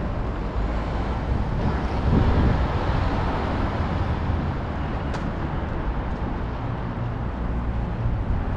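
City street traffic: a steady low rumble of passing vehicles, with one passing louder about two seconds in.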